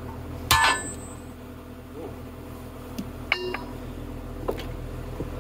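Heavy steel chain clanking against the dozer's steel track and frame: a sharp metallic clank with ringing about half a second in, a ringing ding about three seconds in and a lighter click near the end. An engine idles steadily underneath.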